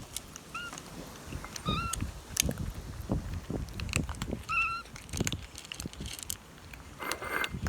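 Kitten mewing: three short, high calls, each rising and falling in pitch, over soft rustling and light bumps.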